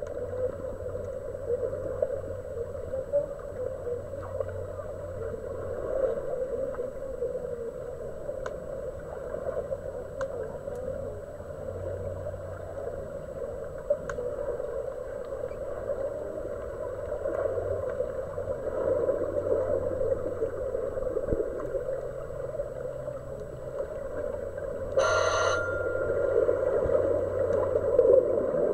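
Muffled underwater pool noise heard through a submerged camera: a steady dull churning from swimmers' fins kicking in the water, with a low hum. About 25 seconds in there is a short high-pitched buzz.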